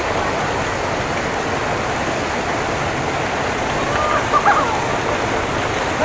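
Steady rush of a large waterfall crashing into a fast-flowing river. A few short calls or voices cut through briefly about four and a half seconds in.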